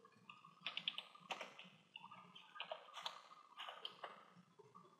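Faint, irregular clicks and taps of a computer keyboard and mouse as values are typed into a size field.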